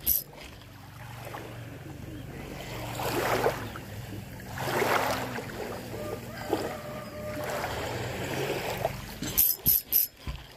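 A small boat engine running steadily at a distance as a low pulsing hum, with water washing in three slow swells. There are a few sharp clicks near the end.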